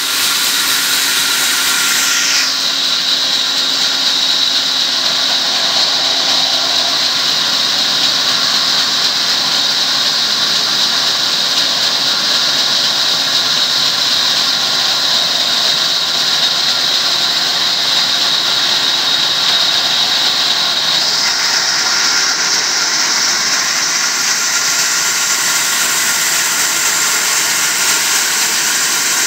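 Large belt-driven vertical band saw running and ripping lengthwise through a thick timber beam: a loud, steady hiss and whine of the blade in the wood. Its tone shifts about two seconds in and again about twenty seconds later.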